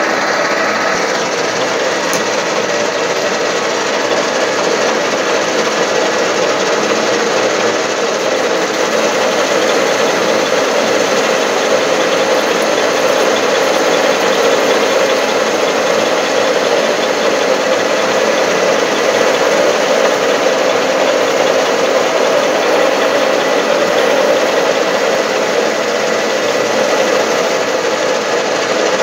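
Metal lathe running steadily as it turns a steel ball on the end of a shaft, with a milling machine running at the same time: a continuous, even machine noise.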